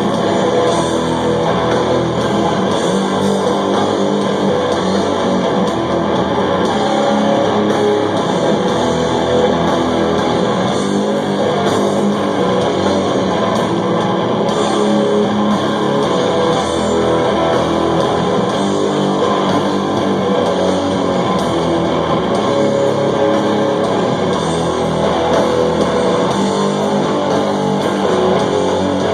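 Live doom metal band playing loud, with distorted electric guitars and bass guitar.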